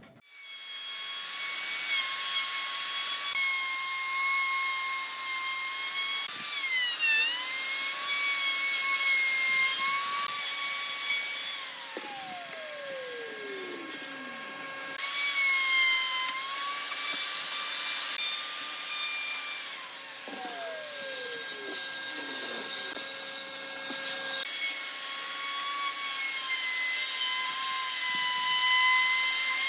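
A high-speed electric power tool motor whines steadily while working wood. Its pitch dips briefly about seven seconds in, as if bogging under the cut. Twice, around twelve and twenty seconds in, a falling tone winds down and the whine then builds back up.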